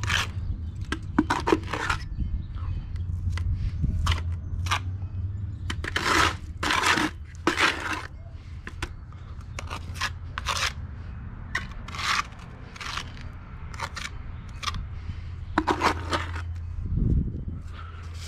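Small steel trowel scraping and pressing wet quick-setting cement into a patch at the base of a concrete step: a run of short, irregular scrapes over a low steady hum.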